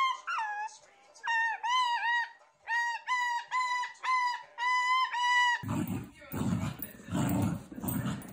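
A white cockatoo gives a run of short, clear calls, about two a second and mostly in pairs, each rising and falling in pitch. About five and a half seconds in, the calls stop abruptly and a dog takes over with rough, rhythmic growling sounds.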